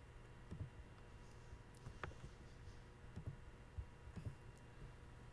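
A few faint computer mouse clicks, the sharpest about two seconds in, over a faint steady hum; otherwise near silence.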